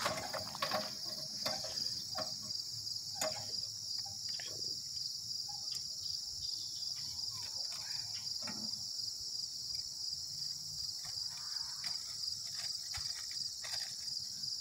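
Insects chirping in a steady, rapidly pulsing high-pitched trill, with a few faint clicks and knocks scattered through it.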